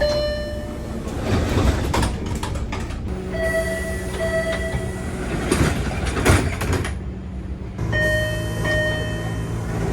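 Door chime of an MBTA Orange Line subway car, heard inside the car: a short two-part electronic tone sounds about three and a half seconds in and again about eight seconds in, over the car's steady rumble and a few knocks.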